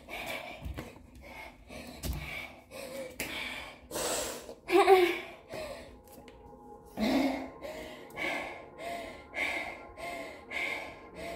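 A woman panting hard after burpees, in quick heavy breaths about two every second. There are a couple of low thumps in the first two seconds, and one louder voiced gasp near the middle.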